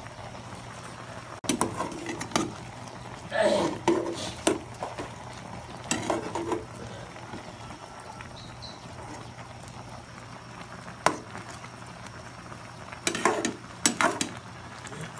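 A ladle clinks and scrapes against a stainless steel pot in several short bursts while stirring and scooping a boiling fish soup. Under it runs the steady bubbling of the rolling boil.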